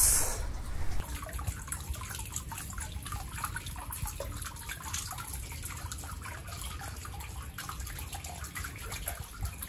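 Water running from a pipe into a tiled foot-bath basin, a steady trickle and splash.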